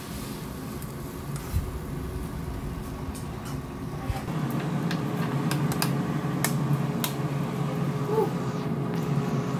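Steady hum of an air fryer's fan running, growing a little louder about halfway through, with a few light clicks and knocks of kitchen handling.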